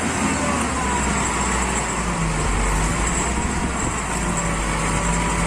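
Truck engine running steadily: a low rumble under a hiss, with no change in pace.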